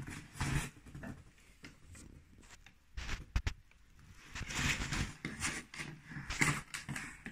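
Dog pawing and nosing a treat ball on a fabric dog bed: irregular rustling and scratching, with two sharp clicks about halfway through and busier pawing in the second half.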